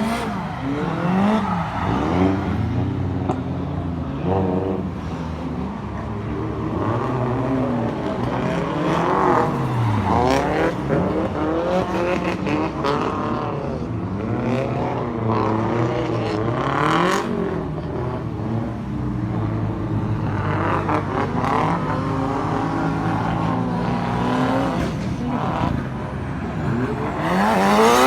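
Drift cars' engines revving up and down over and over, several engine notes rising and falling across each other, with the loudest rev climbing near the end.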